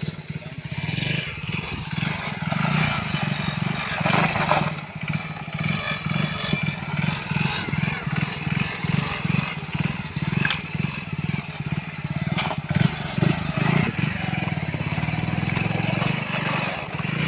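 Backhoe loader's diesel engine running steadily under work, with a few clanks and scrapes from the working bucket.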